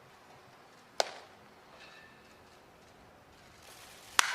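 Two sharp cracks of a baseball striking something, about a second in and again near the end, with faint open-air background between them.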